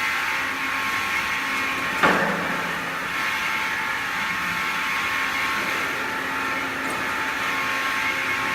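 Cosen semi-automatic miter bandsaw running steadily with a continuous machine hum, and a single sharp clank that rings briefly about two seconds in.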